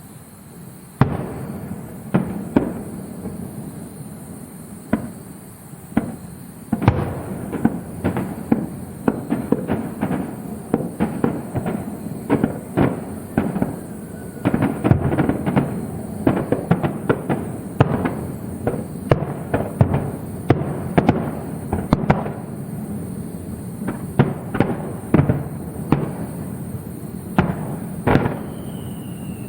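Aerial fireworks shells bursting: a single loud bang about a second in, then bangs coming thicker and faster from about seven seconds on into a dense barrage. A falling whistle sounds near the end.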